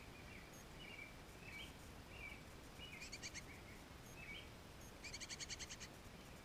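Songbirds calling faintly: short chirps every half second to a second, with two rapid chattering series, a brief one about three seconds in and a longer one of about a dozen quick notes near the end.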